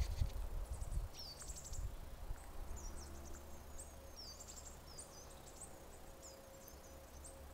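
Small woodland birds chirping and singing, a steady run of short, high, quick notes and little trills. A low rumble on the microphone during the first second or so is the loudest part.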